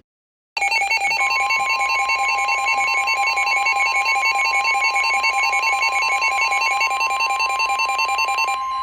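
Weather radio alert: a fast electronic alarm beeping starts about half a second in and is joined by the steady 1050 Hz NOAA Weather Radio warning tone. The beeping stops near the end while the tone holds on. The alarm announces an incoming severe thunderstorm warning.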